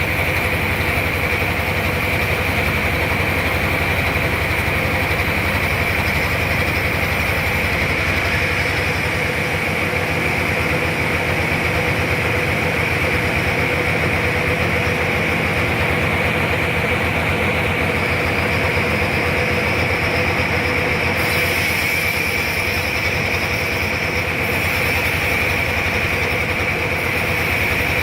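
Sawmill running steadily while cutting a large trembesi (rain tree) log lengthwise into boards, with a constant high blade whine over a low machine hum.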